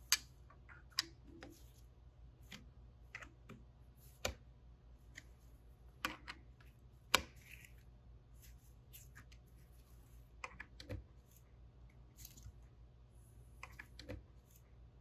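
Scattered sharp clicks and light metal taps, a second or more apart, from a hand tool tightening the bolts of a stainless steel pressure cell in a second pass, over a faint steady hum.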